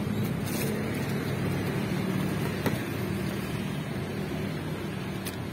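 Steady drone of road traffic with a low engine hum, unbroken throughout.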